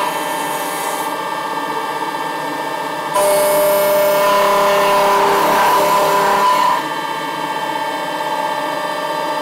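CNC milling machine's end mill cutting through a plastic wire spool: a steady spindle whine with cutting noise. It gets louder and harsher from about three seconds in to about seven seconds in.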